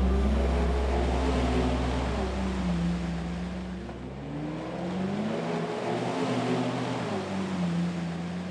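A truck engine revving up and down several times in a row, over the last low chord of the background music as it fades out.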